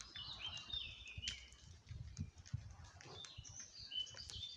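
Small birds chirping, many short overlapping calls and quick stepped notes, with a low uneven rumble underneath.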